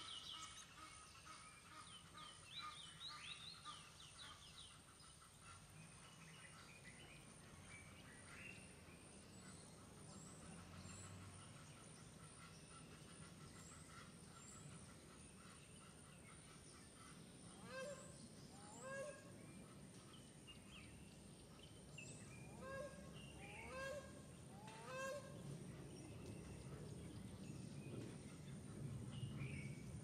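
Birds calling quietly in the background: faint high chirps in the first few seconds, then about six short honk-like calls, each rising and falling in pitch, in two clusters past the middle, over a low steady outdoor hum.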